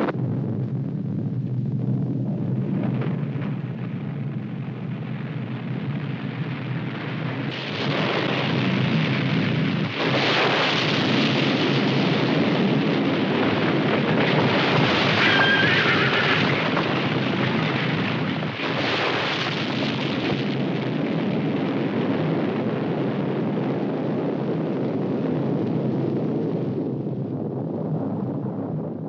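Film soundtrack of a snow avalanche coming down a mountainside: a continuous loud rumble of sliding snow and ice. It swells in several surges through the middle and dies away near the end.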